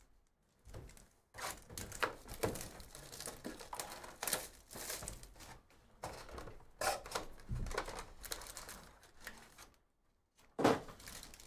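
A cardboard trading-card hobby box being opened and its foil-wrapped packs pulled out and handled: irregular crinkling, tearing and light thumps, with a louder burst near the end.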